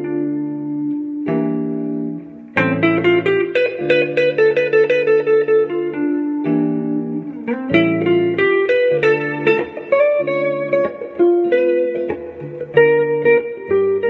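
Clean electric guitar playing single-note jazz lines over a looped backing of held guitar chords that change every few seconds.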